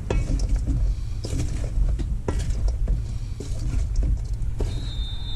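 Scattered clicks and knocks, as of things being handled, over a steady low rumble; a steady high-pitched tone starts near the end and holds for about a second and a half.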